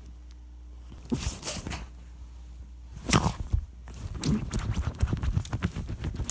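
A dog scratching and digging at bed sheets: irregular rustling scrapes of paws on fabric, coming more often in the second half.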